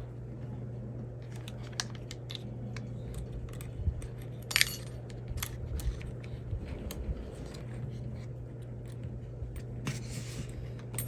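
Scattered small metallic clicks and taps from hand tools and small screws and parts being handled while tightening the sway bar hardware on an RC truck, with the sharpest click about four and a half seconds in. A steady low hum runs underneath.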